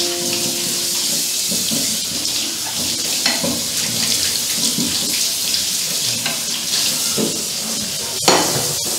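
Kitchen tap running into a metal sink while plates are washed by hand, with scattered small clinks and two sharp clicks near the end.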